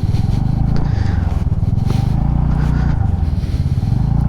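Motorcycle engine running under load on a rough off-road track, the revs rising and falling a little. The rider says the bike is lagging on acceleration and shaking all over, which he puts down to a carburettor, air filter and spark plugs that need servicing.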